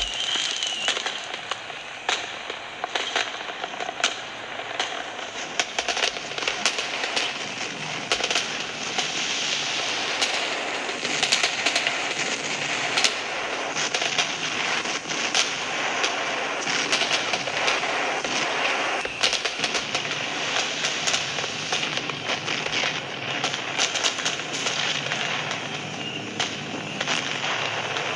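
Recording of fireworks played back from a smartphone into a lectern microphone: dense, continuous crackling and popping of firecrackers, with a short whistling rocket near the start and another near the end.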